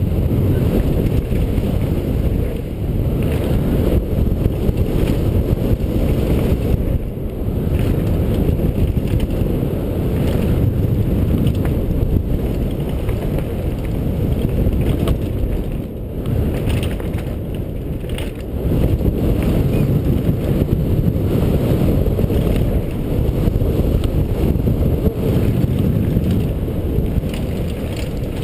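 Wind rumbling on a helmet camera's microphone as a mountain bike descends a dirt and gravel trail, with the tyres crunching over loose stones and the bike rattling over bumps.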